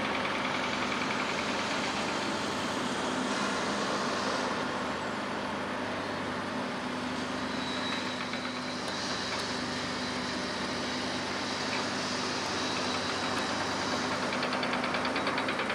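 Heavy construction machinery running steadily: a constant diesel engine hum under a dense mix of site noise.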